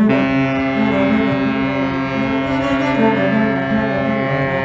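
A long, steady ship's horn with many overtones sounds over continuing cello playing. It starts suddenly and holds throughout while the cello notes change above and below it.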